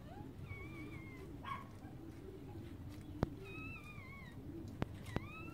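Newborn puppies squeaking and whining: several thin, high, wavering cries that dip and rise in pitch, with a few sharp clicks in the second half.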